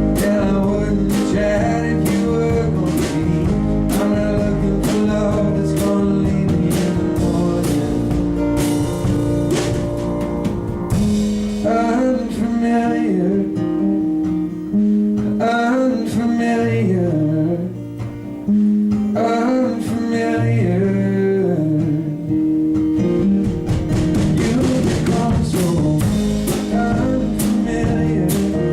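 Live country-blues band playing: guitars over a drum kit. About eleven seconds in the drums thin out, leaving a lead melody with bending notes, and they come back in near the end.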